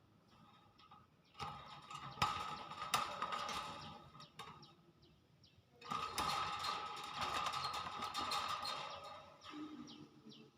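Hill myna making sharp clicks and short falling chirps in two stretches, with a quieter pause between.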